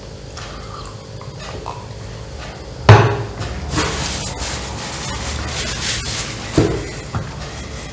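A drinking glass set down on the table with a single loud knock about three seconds in, followed by a few seconds of rustling and two smaller knocks near the end.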